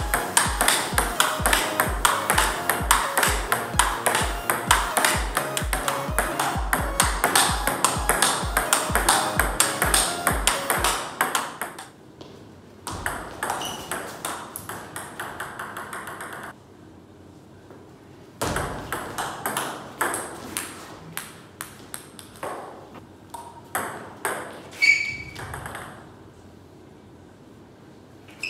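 Background music with a steady beat that stops about eleven seconds in. Then a table tennis ball clicks sharply off rackets and the table in short rallies, with pauses between points.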